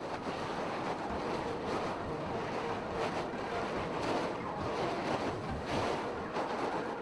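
A steady, even rushing noise with gentle swells, like an ocean-surf or wind ambience track.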